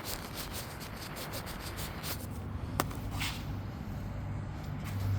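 Camera lens being wiped clean, rubbing right against the microphone: quick scraping strokes for about two seconds, then lighter rubbing with a single sharp click near the middle.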